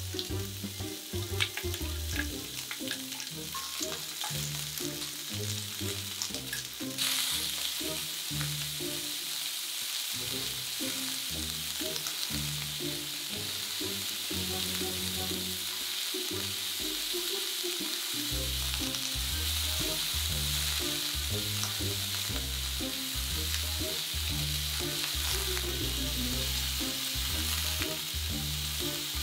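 Sausage and sliced vegetables frying in oil in a cast-iron skillet over a gas burner: a steady sizzle that grows louder about seven seconds in.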